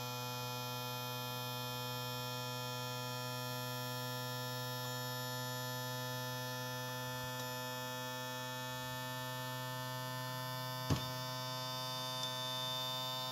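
Electric motor and pump of a Yamaha 150 outboard's Showa power trim and tilt unit running with a steady hum as it raises the engine very slowly, a symptom of the unit's slow tilt. A single sharp click about 11 seconds in.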